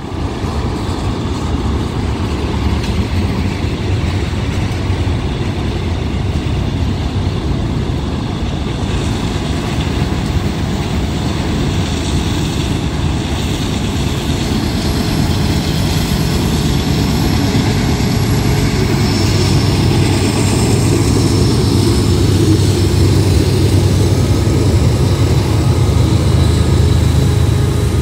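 Freight train rolling past close by: a steady rumble and clatter of the cars on the rails, with the low drone of the Union Pacific diesel locomotives growing louder over the last several seconds as they come alongside.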